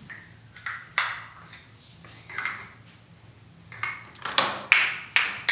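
Plastic Play-Doh toy pieces being picked up and handled: a few sharp clicks and taps with short rustling scrapes in between, busiest near the end.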